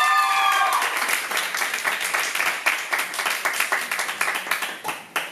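Audience clapping and applauding, with a high held cheer from someone in the crowd during the first second; the applause thins out and fades near the end.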